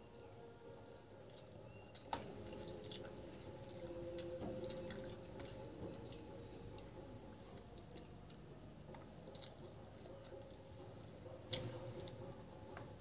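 Faint sounds of a person eating rice with the fingers: soft wet chewing and mouth smacks, with scattered sharp clicks, the loudest about two seconds in and near the end.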